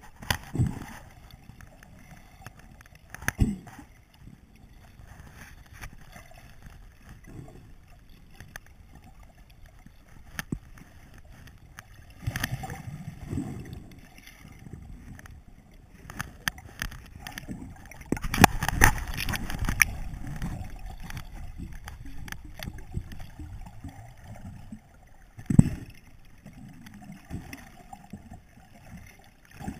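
Muffled underwater sound picked up through a waterproof camera housing: a low rush of moving water and bubbles, with a few dull knocks and a louder stretch of churning water about two-thirds of the way in.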